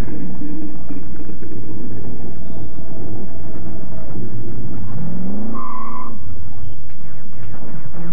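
Vehicle engine rumbling at a custom truck show; about five seconds in, the pitch rises as it revs, with a short high tone over it.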